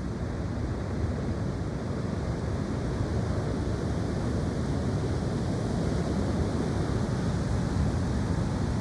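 High wind blowing steadily and rumbling across the microphone.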